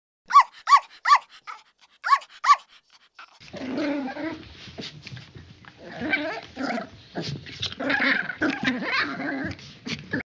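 Animal calls: about five short, sharp calls in the first two and a half seconds, then a long stretch of rough, continuous growling and snarling that stops just before the end.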